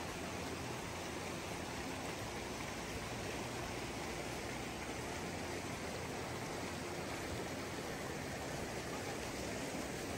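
Glacial meltwater stream rushing fast over rocks and gravel, a steady churning rush of water.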